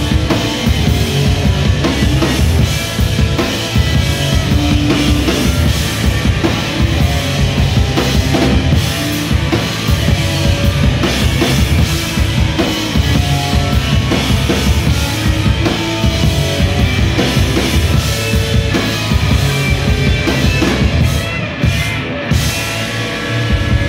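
Live rock band playing loud: electric guitars over a drum kit. The sound briefly thins out near the end.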